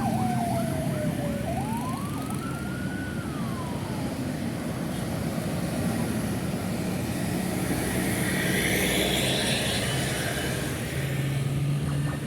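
Emergency vehicle siren over steady city traffic. It has a fast warbling yelp and a slower wail that falls, rises and falls again, both dying away about four seconds in. Traffic keeps running throughout, with a vehicle's passing hiss swelling about eight to ten seconds in.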